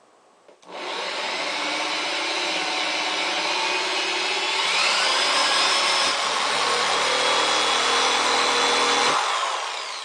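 Corded electric drill boring a hole through the plastic lid of a 5-gallon bucket, the bit grinding through the plastic. The motor starts about a second in, runs steadily under load, then is let off near the end and winds down.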